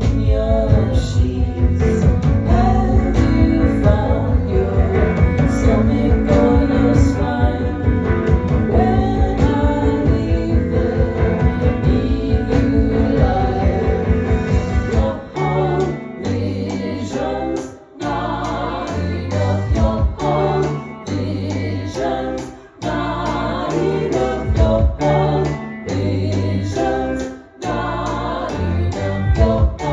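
Live band playing a song with singing. About halfway through, the dense, steady rhythm gives way to a sparser, stop-start section with heavy low notes and short breaks.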